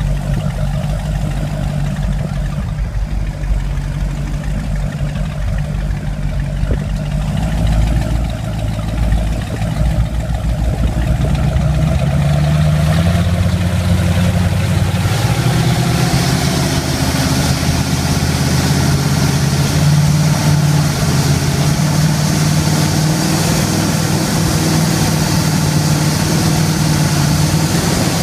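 Scarab performance powerboat's engines running and speeding up, their low note stepping up in pitch about halfway through, then holding steady at speed under a rising rush of wind and spray.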